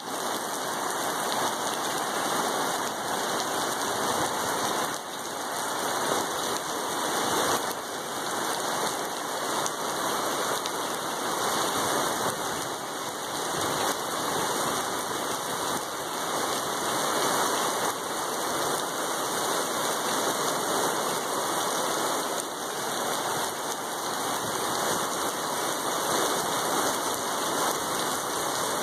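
Heavy rain from a severe thunderstorm pouring down steadily, an even unbroken hiss with no thunder.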